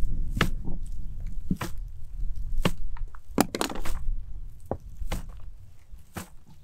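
A roll of waterproofing membrane being unrolled and pressed flat on wooden decking: sharp crackles and knocks about once a second, over a steady low rumble.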